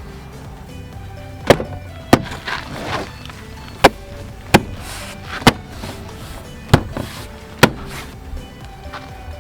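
Background music with faint steady tones, cut by seven sharp clicks or knocks at uneven intervals.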